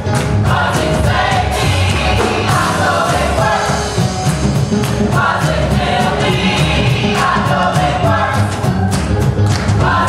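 Gospel choir singing with live band accompaniment, over a steady beat.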